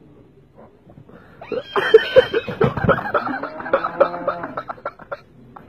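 Laughter in quick, rapid bursts, starting about a second and a half in after a near-quiet stretch.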